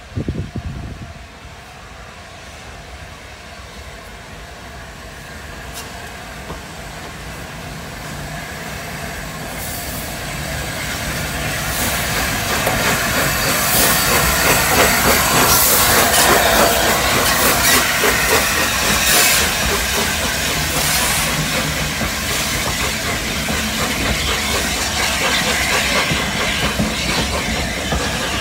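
LNER A4 Pacific steam locomotive 'Union of South Africa', a three-cylinder engine, approaching and passing close by with a hiss of steam, loudest about halfway through as the engine goes past. Its coaches then roll by, wheels clicking over the rail joints.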